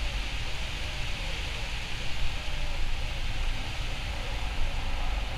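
Steady outdoor background noise: an even hiss with a low rumble underneath, and no clear birdsong.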